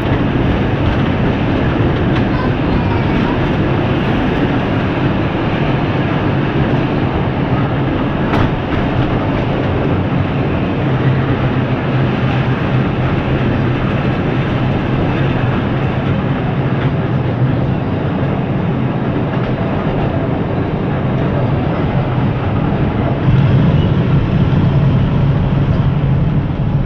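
Historic tram running along street track, heard from inside the car: a steady rumble and rattle of wheels and car body. A low motor hum grows stronger twice, and there is one sharp click about eight seconds in.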